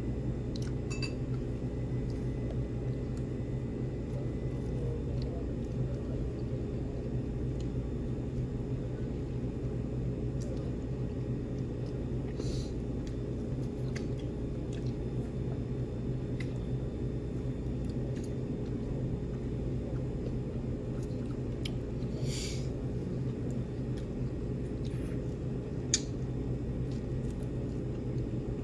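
Small clinks and clicks of dishes and cutlery, with some chewing, as a meal of whole fish and soup is eaten, over a steady low room hum. The sharpest click comes near the end.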